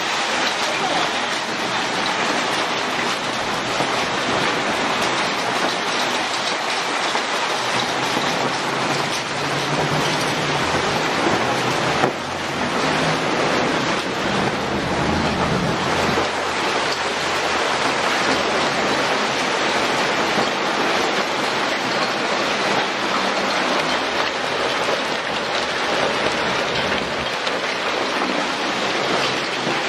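Small hail mixed with rain pelting a wet street and sidewalk, a dense, steady patter. Partway through, an SUV drives past on the wet road, adding a low rumble of tyres and engine that swells and fades.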